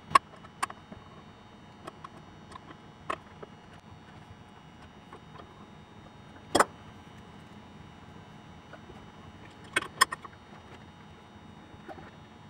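Sharp metallic clinks and knocks of an adjustable wrench against the nut and threaded rod of a crankshaft installer tool, scattered singly. The loudest is about six and a half seconds in, and two come close together about ten seconds in.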